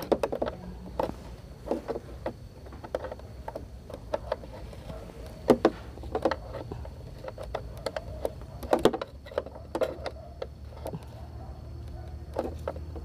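Irregular small metallic clicks and knocks of a 10 mm wrench turning and tightening the headlight-beam adjustment bolt on a Yamaha Mio Sporty scooter, the loudest knocks about five and a half and nine seconds in. A steady low hum runs underneath.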